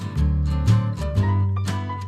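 Background music: plucked acoustic guitar over a bass line with a steady beat.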